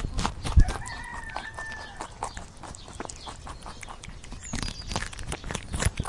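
A rooster crows once, a held call of about a second and a half starting a little before the one-second mark. A dull thump comes just before it, and scattered rustling and clicking runs throughout.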